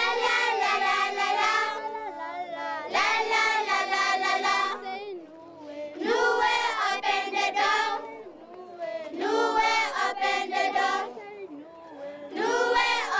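A children's choir singing together in phrases of about three seconds, each followed by a brief pause.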